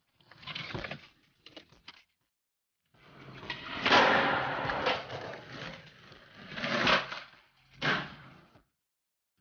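Skateboard wheels rolling, with the sharp clack of board pops and landings, in several short bursts that stop abruptly into dead silence between them; the loudest impact comes about four seconds in.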